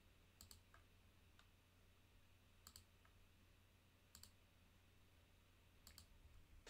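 Faint computer mouse clicks: four quick double-clicks spread through, with a few lighter single clicks between, as folders are opened in a file dialog.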